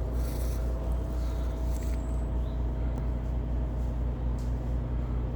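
A steady, low, even-pitched engine hum, running unchanged throughout with faint scraping rustles on top.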